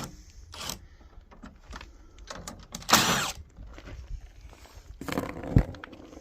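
Scattered clicks and metallic clinks of screws and small metal brackets being handled and taken off, with short scraping noises about three seconds in and again near five seconds.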